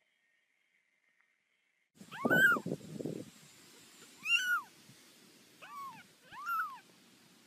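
Tabby kitten mewing four times, starting about two seconds in: short, high-pitched calls that rise and then fall. The first mew comes with a low, muffled rustle.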